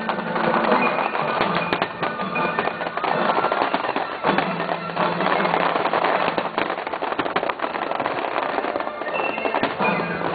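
Fireworks going off in a dense, continuous run of bangs and crackles.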